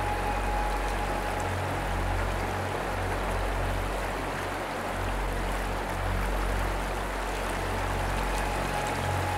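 Mountain creek running over rocks: a steady rush of water. A faint held tone fades out about a second in and comes back near the end.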